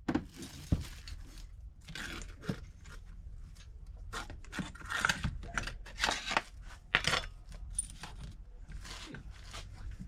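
Metal hand tools, a wrench among them, being handled against metal: a string of short clinks, rattles and scrapes.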